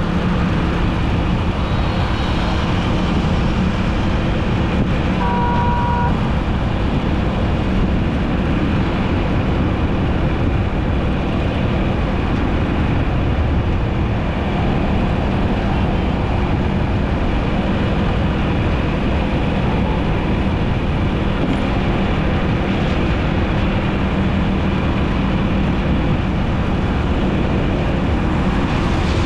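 Steady road and engine noise of a vehicle driving through city traffic, with a low steady drone underneath. A short high beep sounds about five seconds in.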